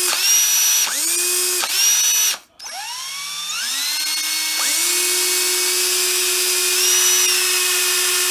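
Hitachi 14.4 V cordless drill-drivers running free with no load, one of them on an 18 V battery, which makes it spin much faster. Three short trigger pulses of motor whine, then after a brief stop the motors wind up gradually and hold a steady high whine.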